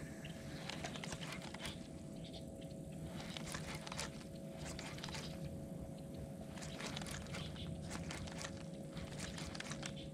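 Faint, irregular clicking and crackling from handling a baitcasting rod and reel close to the microphone, over a faint steady hum.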